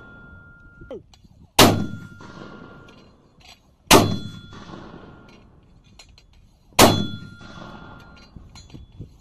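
Mortar firing three rounds in rapid succession, a couple of seconds apart. Each round goes off with a sharp blast, followed by a ringing metallic tone from the tube that fades over about a second.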